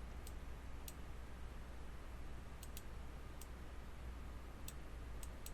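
Faint computer mouse clicks, about eight of them scattered irregularly over a few seconds, over a low steady hum.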